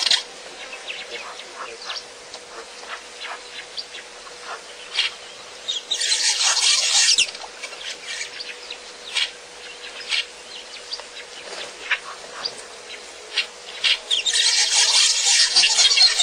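Outdoor bush ambience: scattered short bird chirps, with loud insect buzzing that switches on for about a second around the middle and again near the end.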